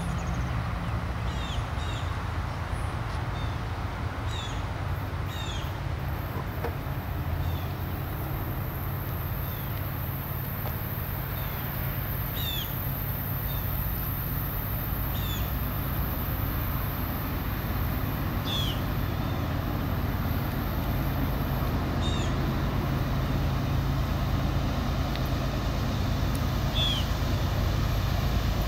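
Low rumble of the approaching train's diesel locomotives, still out of sight, growing slowly louder. Short downward bird chirps repeat every second or two over it.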